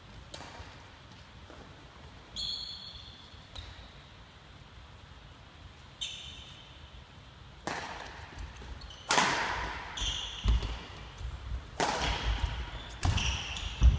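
Badminton rally: shuttlecock struck back and forth by rackets, sharp hits ringing in a large hall, sparse at first and then coming about every second and a half in the second half. Between the hits, feet thud and shoes squeak on the wooden court floor.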